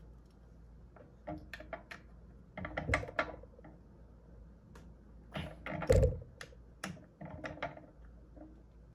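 Scattered metal clicks and knocks of a hand tool and suspension parts as the screws of a reinforcement support are tightened under a Ninebot Max scooter's rear suspension. The loudest is a heavier knock about six seconds in.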